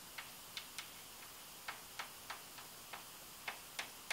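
Chalk writing on a blackboard: a string of light, irregularly spaced clicks as the chalk strikes the board with each stroke of the letters.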